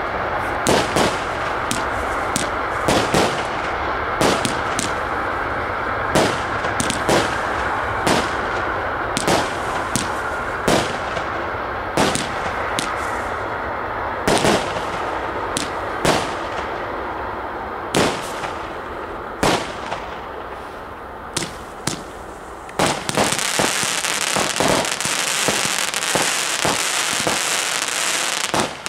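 Aerial firework shells going off, sharp bangs about once a second over a steady rumbling hiss. Near the end the bangs give way to a dense, high crackling as crackling-star shells burst.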